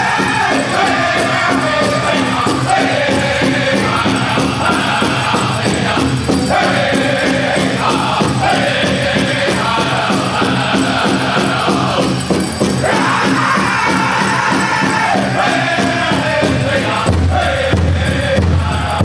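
Powwow drum group singing a chicken dance song: several voices singing together in rising and falling phrases over a fast, steady beat on the big drum.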